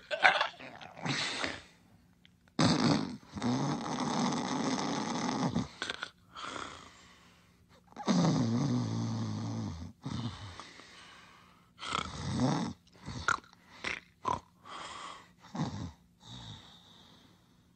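Snoring sound effects for a sleeping cartoon character: two long snores of about 3 s each, about 2.5 s and 8 s in, followed by a run of shorter snorts and grunts.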